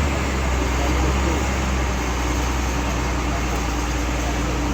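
Large vehicle's engine running steadily under road noise, a low even drone with no change in pitch.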